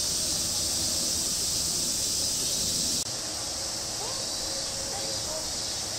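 Steady high-pitched drone of insects, with a slight drop in level about halfway through.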